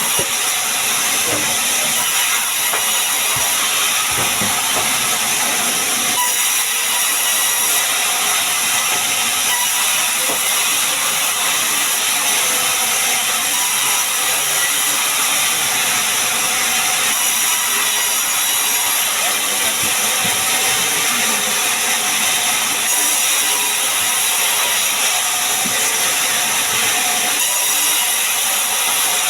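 Sawmill saw running steadily, a loud, even high-pitched hissing noise with no break, as it processes sengon wood into beams.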